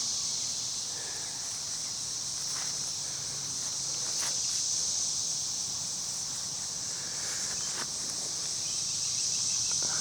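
A steady high-pitched chorus of insects, with a faint low hum underneath.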